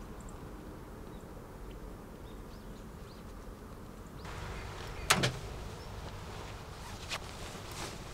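Faint outdoor ambience. The background hiss rises about four seconds in, then a single loud, sharp knock comes about five seconds in, followed by a few lighter clicks near the end.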